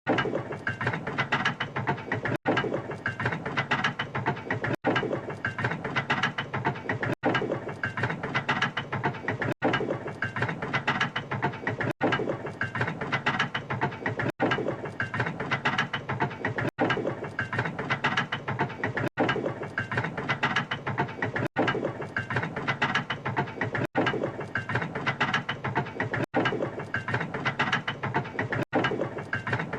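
Sound effect of a railway locomotive turntable turning: a steady clattering, grinding run of gears and ratchet-like clicks. It is looped, repeating about every two and a half seconds with a brief dropout at each join.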